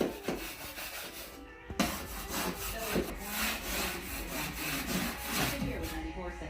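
A wall being sanded by hand, with irregular rough rubbing strokes.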